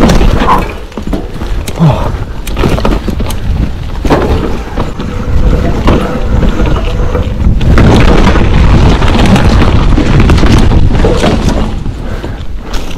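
Mountain bike riding fast down a rough trail: tyres rolling over dirt and rock, and the bike knocking and clattering over bumps. A steady low rumble of wind on the microphone runs under it.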